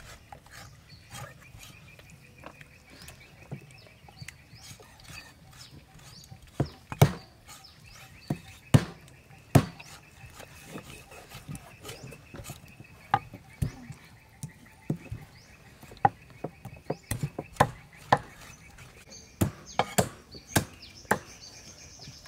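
Meat cleavers chopping raw chicken wings on thick round wooden chopping blocks. The chops come at an irregular pace, sharp and a few of them loud, sparse at first and much more frequent from about six seconds in.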